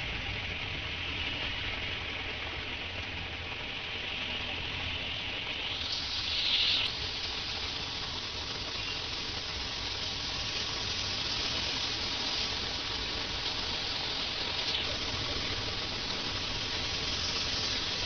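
Heavy rain pouring steadily onto a flooded road, a dense even hiss, with one brief louder rush about six seconds in.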